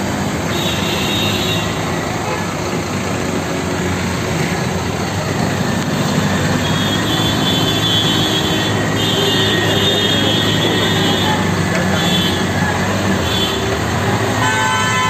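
Road traffic wading through a flooded street, heard from inside a car: a steady engine drone, vehicle horns tooting on and off, and a louder horn blast near the end.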